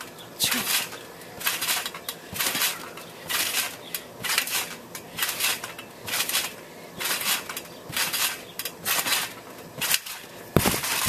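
Trampoline bouncing: the mat and steel springs sound at each landing in a steady rhythm, a little more than one bounce a second, with a heavier thump near the end.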